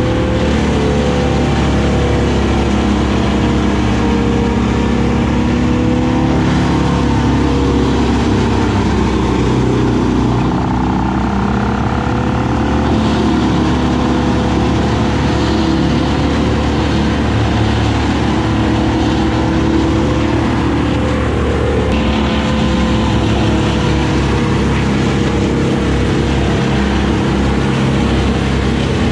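Mini excavator's diesel engine running steadily, with pitch shifting slightly as the hydraulics work the boom, and a wood chipper's engine running alongside.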